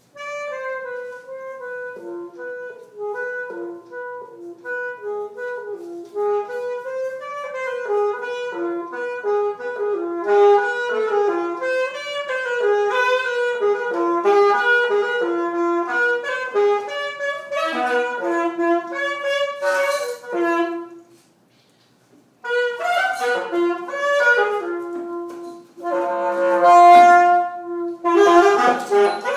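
Solo saxophone improvising in quick, running phrases of single notes, breaking off for about a second and a half about two-thirds of the way through before going on.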